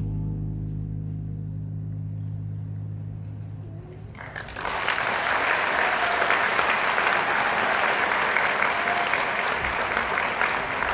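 The music's final held low chord fades away, then an audience breaks into applause about four and a half seconds in and keeps clapping steadily, with a few voices in the crowd.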